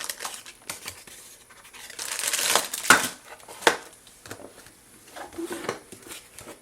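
Product packaging being handled: crinkling, tearing rustles of wrapping, loudest about two to three seconds in, with a few sharp clicks and taps.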